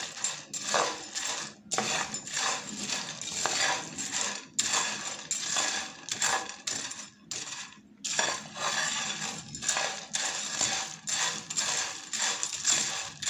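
Metal spoon stirring salted sunflower seeds in their shells in a dry frying pan: the seeds rattle and the spoon scrapes the pan in repeated strokes with short pauses. The shells are dry and crisp, late in the toasting.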